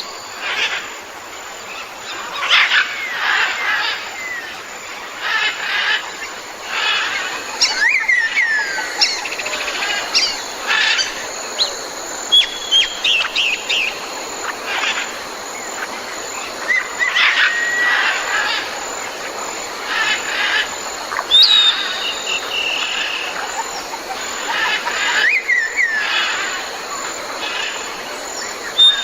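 Tropical jungle ambience: many birds chirping and calling, with short sliding whistles and quick repeated notes, over a steady background of insects.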